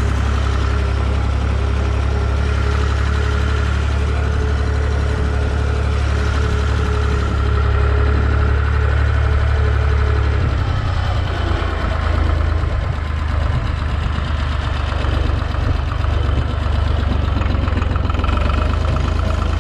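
Tractor engine running steadily, its low note shifting about halfway through.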